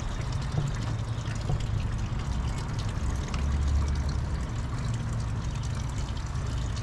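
Water running and splashing steadily, with a low steady hum underneath that swells into a deeper rumble for about a second a little after three seconds in.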